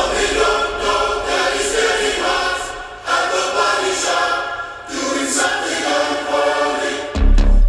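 Music played over a car stereo with Morel Elate Carbon Pro component speakers: a new track opens with layered, choir-like vocals, and a heavy bass hit comes in near the end.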